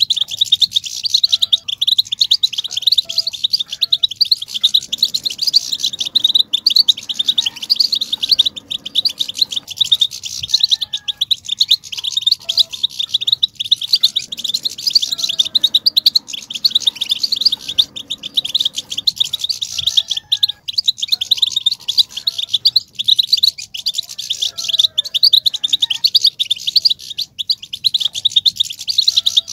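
A flock of European goldfinches twittering and chattering, a dense run of rapid high chirps with no pause. It is the excited goldfinch chatter ('batbata') that keepers play to stir a male goldfinch into song.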